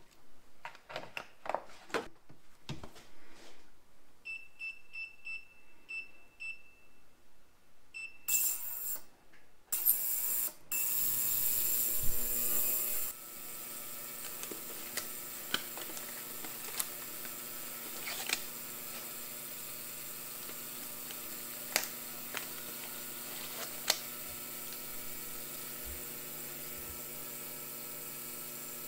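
Benchtop ultrasonic cleaner being filled and started: a few pours and drips of liquid, a run of short electronic beeps from its control panel, a loud hissing burst for a few seconds, then a steady electric hum while it runs with a cylinder head soaking in heated solution. A few small clicks and rustles of handling over the hum.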